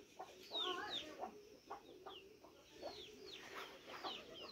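Chickens clucking faintly, with many short, high, falling chirps repeated throughout.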